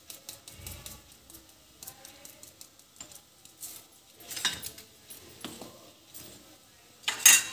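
Small glass spice jar being shaken over bread in a frying pan: quick light clicks and rattles of the jar and herbs, with a short, louder clatter near the end.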